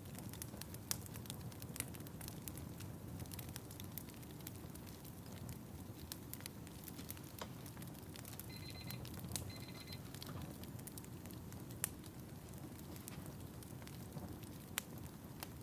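Wood fire crackling, with sharp pops over a steady low rumble of flames. About nine seconds in come two short bursts of rapid electronic beeping.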